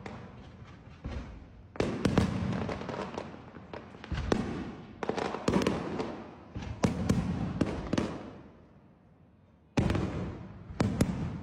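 Aerial fireworks bursting overhead: a series of sudden bangs, each trailing off in a rumble with sharp crackles. There is a lull of about two seconds before the bursts resume near the end.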